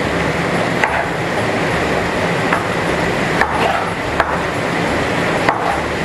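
Kitchen knife cutting tomatoes into large cubes on a wooden cutting board: five sharp, irregularly spaced knocks of the blade on the board over a steady hiss.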